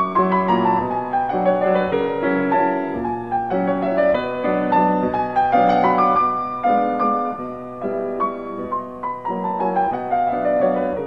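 Background piano music: a gentle melody of separate notes, with a descending run near the start and another near the end.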